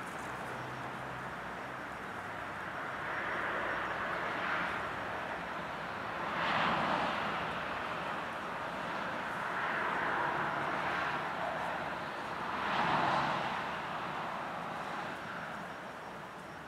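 Outdoor background noise: a steady hiss that swells and fades four or five times, each swell lasting a second or two, with no clear pitch.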